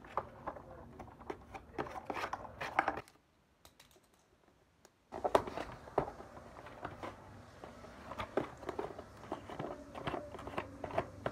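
Toy packaging being handled and pulled apart: cardboard and plastic crinkling and rustling with scattered small clicks. It stops for about two seconds partway, then starts again.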